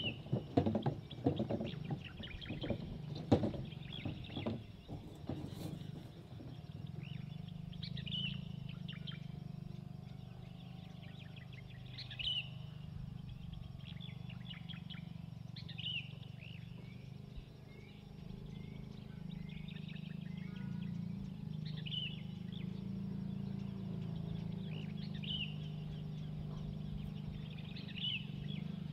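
A wooden hand-pulled cart knocking and rattling over loose gravel for the first few seconds, fading as it moves off. Then a bird repeats a short call every few seconds over a steady low rumble.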